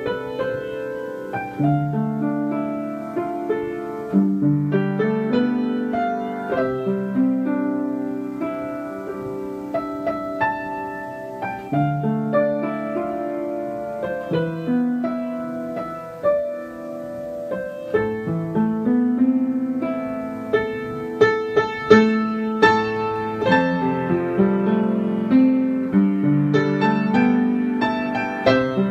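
Solo piano music: background piano playing a gentle melody over chords, with a steady stream of separately struck notes.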